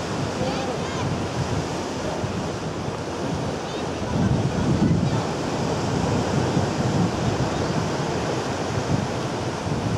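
Sea surf washing in over a rocky reef shore, a steady rush of waves with a louder surge about four seconds in, and wind on the microphone.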